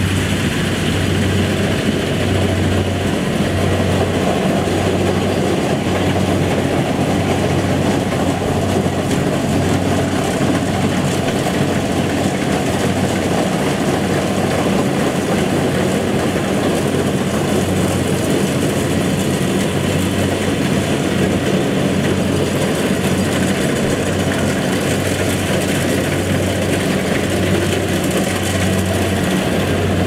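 Rice combine harvester running steadily, a loud engine and machinery drone with a low hum that swells and fades every second or two.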